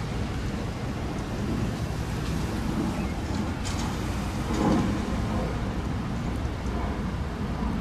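Steady low rumble of a slow-moving freight train, with a few faint clicks about halfway through and a brief swell in the rumble a little later.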